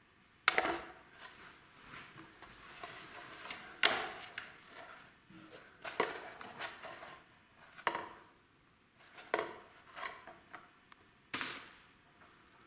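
Rolled paper tube knocking and scraping on a tile floor as a kitten bats and wrestles it: about six sharp knocks with rustling scuffles between them. Near the end comes a crinkle of a cellophane bag the kitten pounces on.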